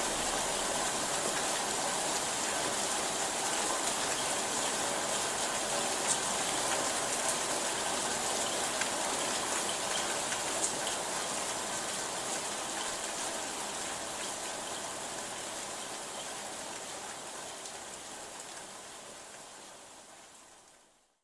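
Steady rainfall with a few distinct drops ticking, fading out gradually over the last several seconds.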